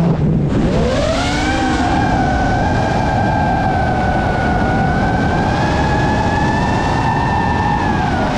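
5-inch FPV racing quadcopter's brushless motors whining, as picked up by the onboard GoPro. The pitch climbs back up about a second in as the throttle is pushed, holds fairly steady through the cruise, and eases slightly near the end.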